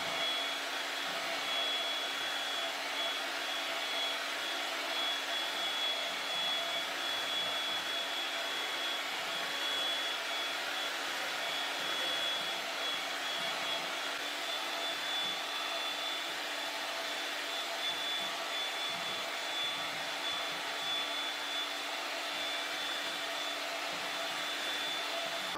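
Electric hand mixer running steadily, its beaters whisking egg whites, yolks and oil into a sponge-cake batter in a glass bowl: an even motor whir with a thin high whine.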